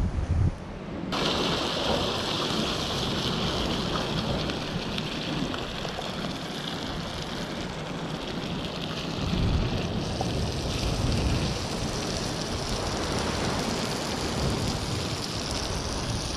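Wind rumbling on the microphone for about a second, then a curry sauce frying on high heat in a small pan over a campfire: a steady, dense sizzle, with surf and wind behind it.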